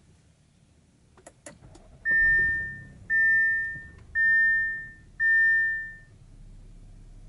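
2018 Audi Q7's seatbelt warning chime: four loud, clear chime tones about a second apart, each held briefly and fading. A few quick clicks come just before the first chime.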